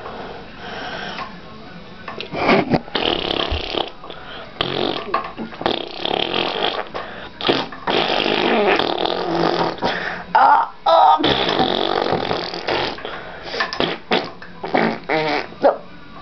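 Fart noises in irregular spluttering bursts, meant as a bout of diarrhea. They get louder and come thick and fast from about two seconds in.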